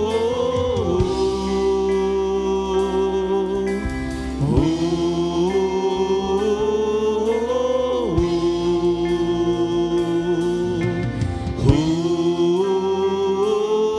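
Slow worship music: a man sings long, held phrases of about four seconds each, over acoustic guitar, a soft steady backing and light cymbal taps from a drum kit.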